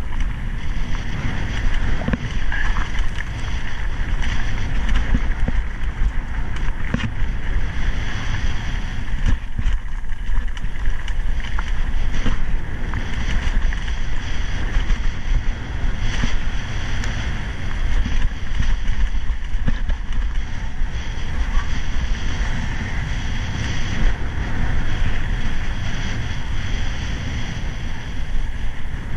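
Mountain bike descending a rocky singletrack: tyres crunching over loose stones and the bike rattling over the bumps, with wind buffeting the action camera's microphone.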